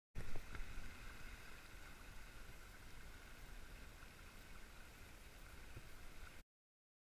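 Sailboat under way through the water: a steady low rumble and hiss of wind and water noise. It starts suddenly with a brief bump and cuts off abruptly near the end.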